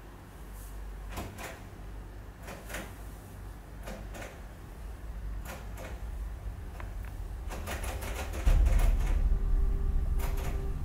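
Satin prayer robe (mukena) rustling in short swishes as it is pulled on and adjusted. Underneath is a low rumble that builds and jumps much louder about eight seconds in.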